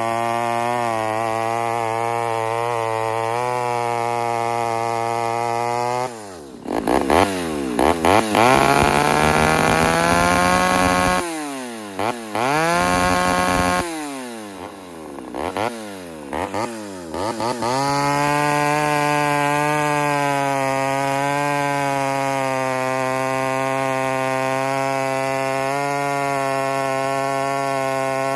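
Ported Homelite Super XL Automatic two-stroke chainsaw running at a steady idle, then revved hard several times from about six seconds in: quick throttle blips and a few seconds-long bursts at high revs. It drops back to a steady idle about eighteen seconds in.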